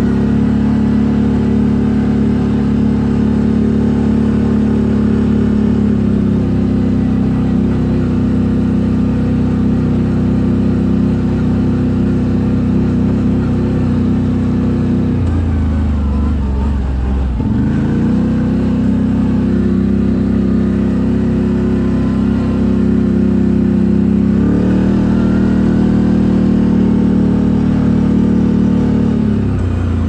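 CFMoto CForce 1000 ATV's V-twin engine running through an Akrapovic exhaust at steady revs while riding. The engine note shifts a few times, with the revs dropping briefly about halfway through and then climbing back.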